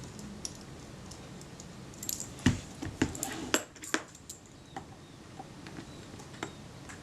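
Sharp little clicks and taps of metal parts and small tools being handled on a workbench, bunched about two to four and a half seconds in, with a few fainter ticks after.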